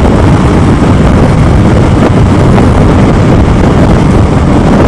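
Loud, steady wind rush and riding noise of a motorcycle at highway speed, picked up by a Sena 20S Bluetooth helmet headset microphone.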